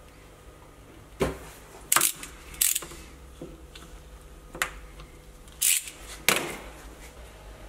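About six sharp metallic clacks, spread unevenly, as hand tools and engine parts are picked up and set down on a workbench. A torque wrench is among the tools being handled.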